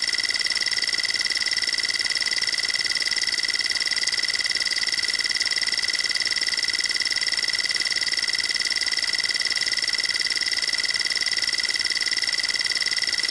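Electronic emergency-alert alarm tone: a harsh, high-pitched buzz that stays at one steady pitch, unbroken and unchanging.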